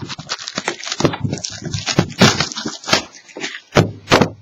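Plastic shrink wrap crinkling and tearing as a sealed trading-card box is unwrapped and opened, a dense run of sharp, irregular crackles and snaps.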